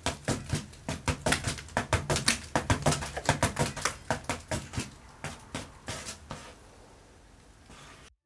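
Ceiling fan clicking as it spins, a quick, even ticking of about four or five a second that slows and fades away as the blades coast to a stop.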